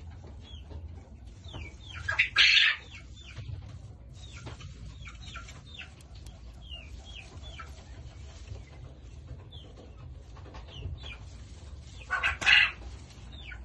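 Dry hay rustling in two loud bursts, about two seconds in and again near the end, as gerbils dig and burrow into a heap of hay. Throughout, short high chirps that fall quickly in pitch repeat every second or so over a low steady hum.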